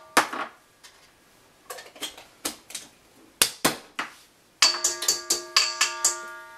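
Metal kitchen utensils clinking while dry ingredients are measured out: a few scattered clicks and knocks, then near the end a fast run of metallic taps that ring.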